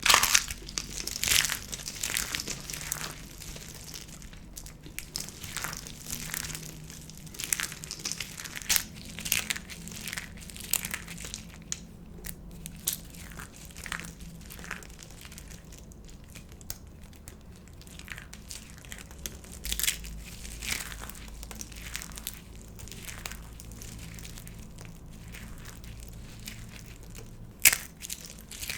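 Dry soap crunching and snapping: a run of irregular, sharp, crisp cracks and crackles. The loudest crack comes right at the start, and another near the end.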